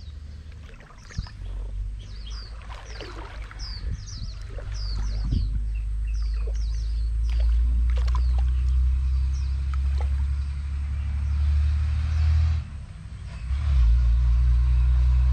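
A steady low rumble that swells about a third of the way in and dips briefly near the end. Over it, a run of short, high, falling bird chirps comes in the first half.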